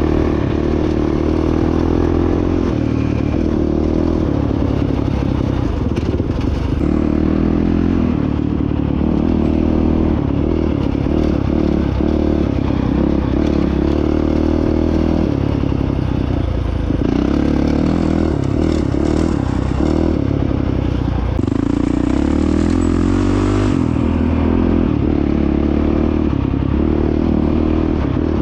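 Honda CRF450X dirt bike's single-cylinder four-stroke engine running while being ridden, its pitch shifting every few seconds as the throttle opens and closes.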